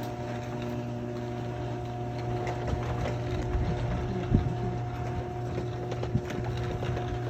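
Craftsman garage door opener running steadily as it moves the door, a steady motor hum with a couple of brief knocks partway through.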